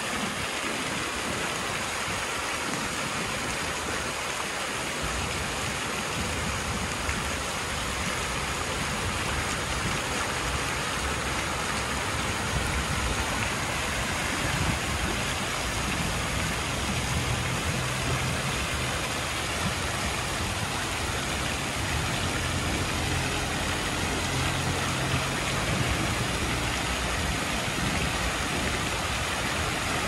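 Fountain jets splashing steadily into a stone basin: a constant hiss of falling water. A low rumble joins underneath about five seconds in.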